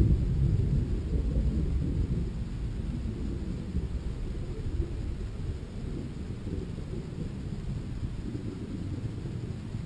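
Low, rolling rumble, the tail of a rocket's reentry sonic boom, slowly fading away.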